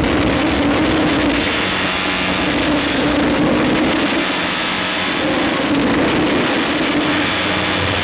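Harsh noise music: a loud, unbroken wall of distorted noise with a steady low drone running through it.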